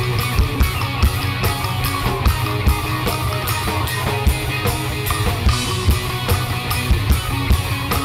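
Rock band playing an instrumental passage, no vocals, over a steady, evenly spaced drum beat and a sustained bass line.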